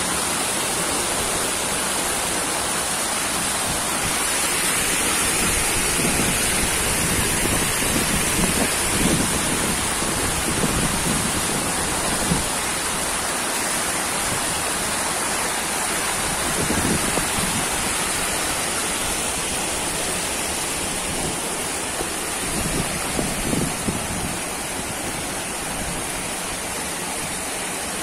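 Overflow water from a full lake pouring in a thin sheet over a long concrete weir and rushing white and foaming down the apron below: a steady rush of falling water, with a few low bumps now and then.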